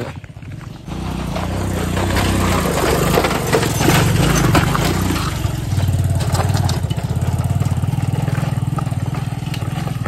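Motorcycle engine running under load up a steep, broken hill road, coming in about a second in and holding steady with small changes in pitch.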